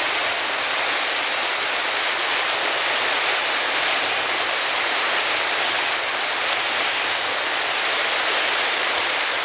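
A flooded, fast-flowing river rushing steadily, giving a loud, even wash of water noise with no break.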